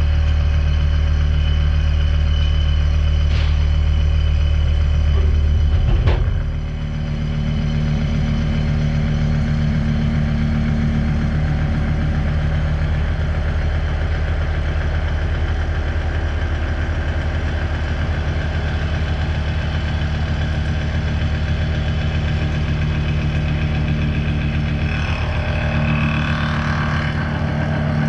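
Mazak horizontal machining centre running a cut in AR400 abrasion-resistant steel plate, a steady machine sound made of several held tones. About six seconds in there is a short sharp click, the lowest tone gives way to a higher one, and steady running resumes.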